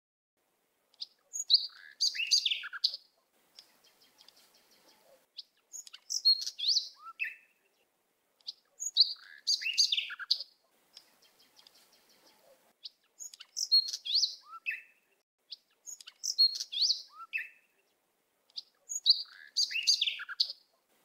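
A songbird singing the same short, quick phrase of high chirping notes six times, a few seconds apart.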